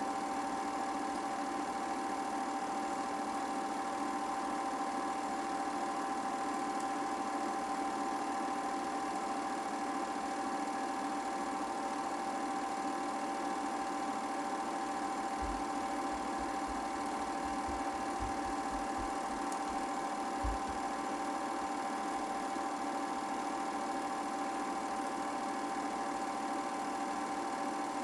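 8mm film projector running: a steady mechanical whirr with several fixed tones from its motor and shutter mechanism. A few faint low knocks come about two-thirds of the way through.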